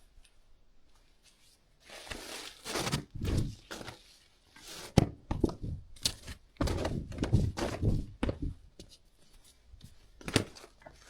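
A run of thumps, knocks and rustling in a small room, with a sharp knock about five seconds in and another near the end.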